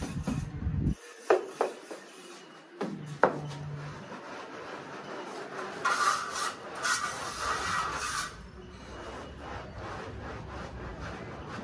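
A mason's steel trowel knocks sharply a few times, then scrapes rough and rasping for about two seconds as cement mortar is worked onto a plastered wall.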